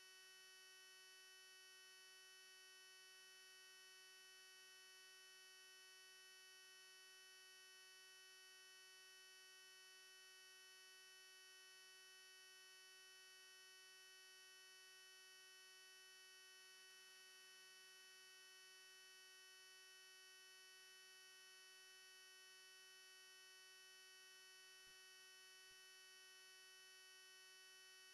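Near silence, with only a faint, steady electrical hum of several tones in the recording line.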